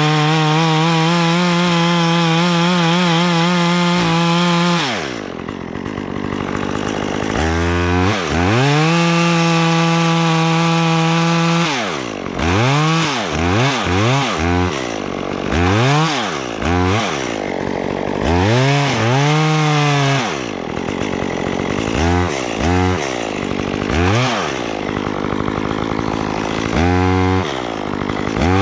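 Chainsaw engine held at full throttle for about five seconds, then dropping off, revved up again and held for a few seconds, followed by a long run of quick throttle blips rising and falling, with a final rev near the end.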